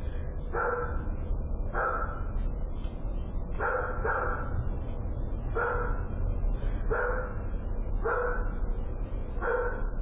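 A dog barking repeatedly, about eight single barks spaced a second or two apart, over a steady low hum.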